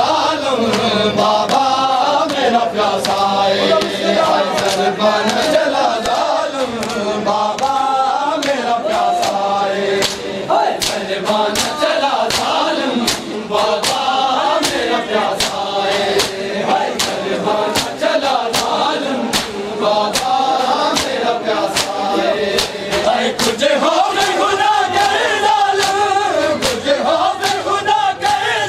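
Many men chanting a mourning noha together, with the sharp slaps of palms on bare chests (matam) beating in time, about two a second. The slaps grow clearer and more regular about a third of the way in.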